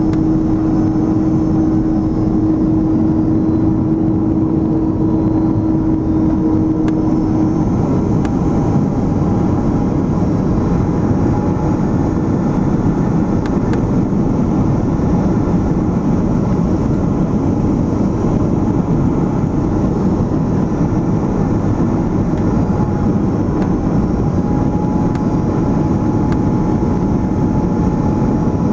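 Airbus A330 cabin noise on final approach, heard from a seat beside the wing: the steady rush of the engines and airflow. A steady hum runs alongside it and stops about seven seconds in.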